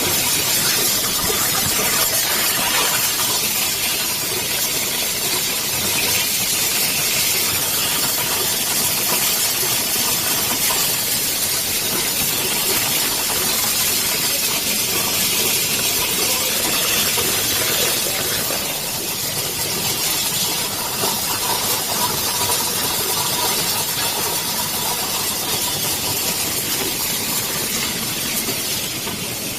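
Plastic colour sorter machine running: a steady hiss with a faint steady hum underneath.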